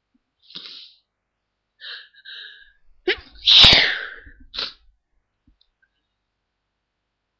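A person sneezing. A few short, breathy catches of breath build up over the first couple of seconds, then comes a loud, sharp sneeze about three and a half seconds in, followed by a brief burst just after.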